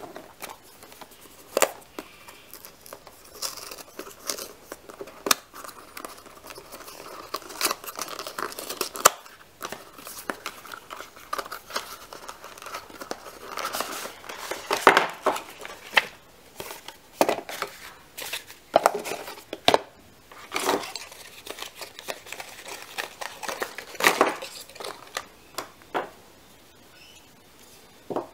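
Cardboard and paper packaging being opened by hand: rustling, crinkling and tearing of the box and its cardboard insert, broken by irregular sharp clicks and taps. The handling grows sparser near the end.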